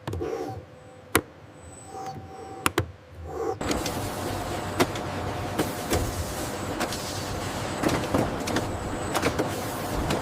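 Factory machinery running: a steady hum broken by a few sharp clicks, then about three and a half seconds in a louder, dense mechanical clatter with many small clicks sets in.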